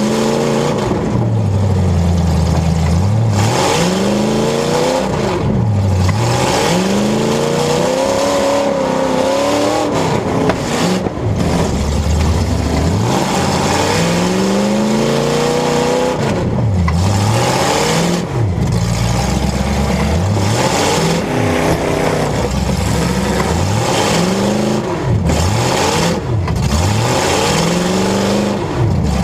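Several car engines revving hard, their pitch rising and falling again and again and overlapping, as demolition-derby cars accelerate, back up and charge. Loud and continuous.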